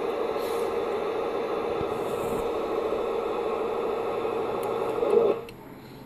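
Steady static hiss with a buzzing hum from a radio's speaker, the noise of a self-oscillating LM7812 12 V regulator that has no input capacitance. It cuts off suddenly about five and a half seconds in, when a 0.1 µF (104) ceramic capacitor is connected from the regulator's input to ground.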